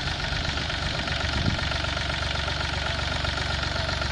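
Force Abhiman 27 HP mini tractor's diesel engine running steadily.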